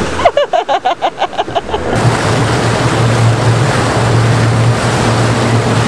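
Towing motorboat's engine running with a steady low hum under a loud rush of water and wind. In the first two seconds a quick run of about a dozen short, wavering pulses sounds over it.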